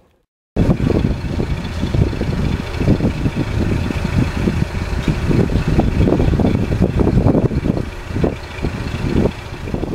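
KiHa 58-series diesel railcar idling at a standstill, a steady low engine rumble with an uneven clatter. It starts abruptly about half a second in, after a moment of silence.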